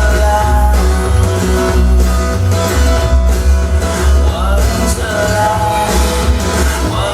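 Rock song with singing, guitar and heavy bass, played back through home-theater speakers driven by a Yamaha RX-V665 AV receiver.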